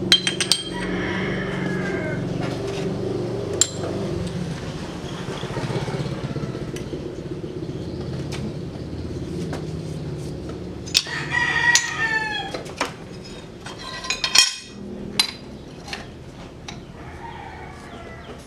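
A rooster crowing, faintly about a second in and again louder about eleven seconds in, over a steady low hum. Scattered sharp metal clanks of steel press plates being shifted by hand.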